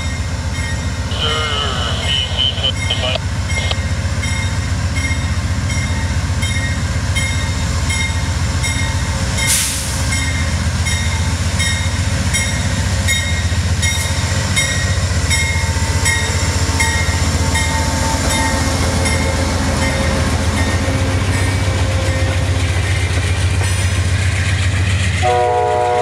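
Amtrak passenger train hauled by a GE Genesis diesel locomotive moving off and passing close by: a steady low engine drone with wheel and rail noise, and the locomotive bell ringing at an even pace. The horn sounds a chord about a second before the end.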